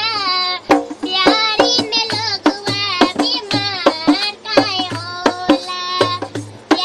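A young girl singing a Bhojpuri song in a high voice with wavering, gliding notes, over a rhythm of drum strikes.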